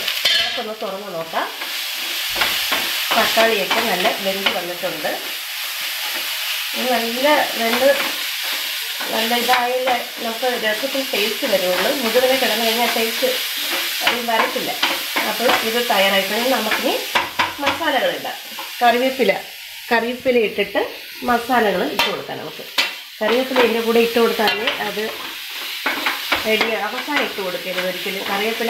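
A spatula stirring and scraping chopped tomato and onion around a frying pan in repeated strokes over hot, sizzling oil. Some strokes carry a wavering, squeaky pitch.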